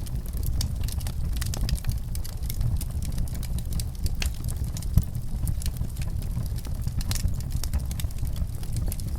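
Wood fire in a fireplace crackling, with many small sharp pops over a steady low rumble. One louder pop comes about halfway through.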